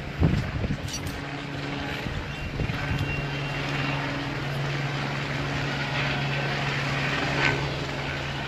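An engine running with a steady low drone.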